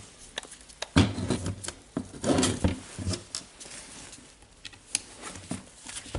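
Plastic housing parts of a Makita DDF456 cordless drill clicking and knocking together as the cover is fitted and pressed shut, a scatter of irregular light clicks and taps.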